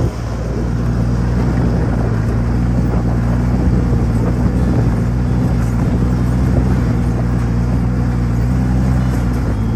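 Arctic Cat XF 1100 Turbo snowmobile's turbocharged four-stroke engine running at a steady cruise, heard from the rider's seat, its pitch and level holding even throughout.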